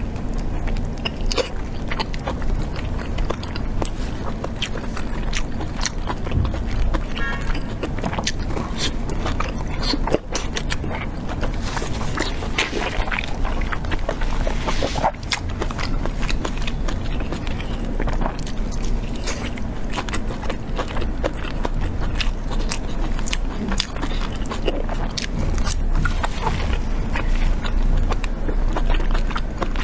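Close-miked eating: a mouthful of braised pork being bitten and chewed, with many irregular wet clicks and smacks.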